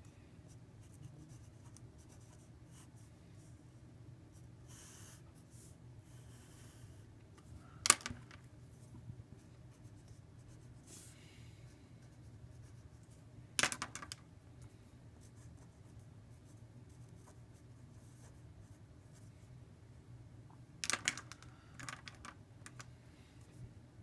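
Felt-tip markers drawing on paper: faint scratching strokes, with a few sharp clicks, two of them close together late on, over a faint low hum.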